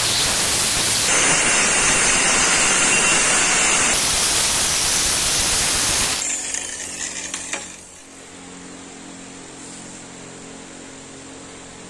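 Angle grinder disc grinding a steel blade made from old circular-saw steel: a loud, steady grinding hiss that changes texture for a few seconds as the disc works the surface, then stops about six seconds in, leaving a faint steady hum.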